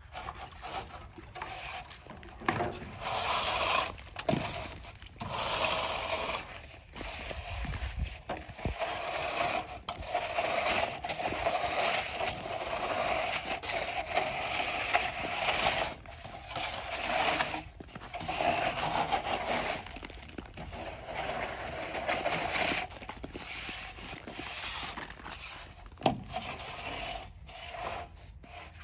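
Hand-worked scraping and rubbing in irregular bursts, with a few sharp knocks.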